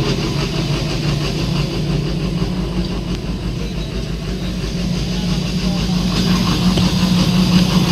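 Starter motor running steadily with a low hum; the mechanic puts it down to a stuck starter solenoid.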